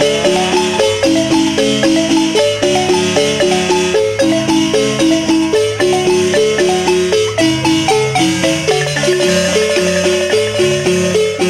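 Wooden marimba played by three players with mallets, playing a son: quick repeated strikes on the bars in a steady rhythm, melody and chords over a lower bass line.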